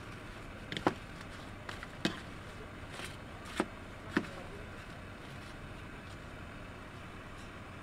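Spoon and fork clinking against a plate while cutting into leaf-wrapped food: four sharper clinks with lighter taps between over the first four seconds or so, over a steady background hiss.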